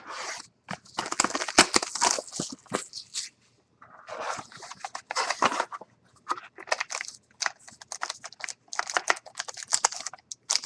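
Cardboard trading-card box being torn and pulled open by hand, with rustling, crinkling and scraping of cardboard and packaging in bursts. There is a short pause about three seconds in, then a run of quick scrapes and crinkles.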